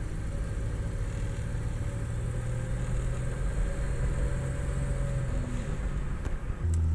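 Turbocharged Buick 3800 L36 V6 running steadily as the car drives along, heard from inside the cabin. Near the end the engine note steps up and gets louder.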